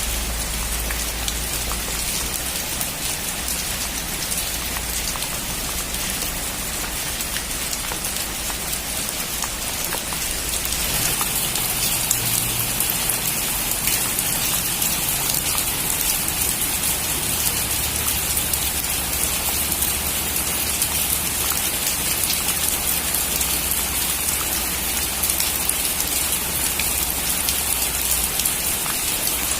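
Heavy rain falling on a metal roof: a dense, steady patter of drops that grows a little heavier about a third of the way through.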